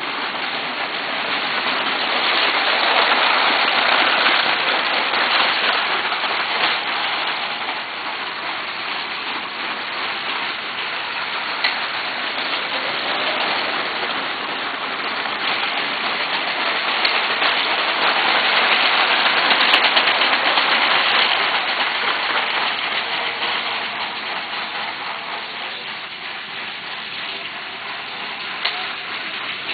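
Lego 12-volt trains running on plastic track: a steady rattling clatter of small wheels and motors, swelling and fading twice as trains pass close.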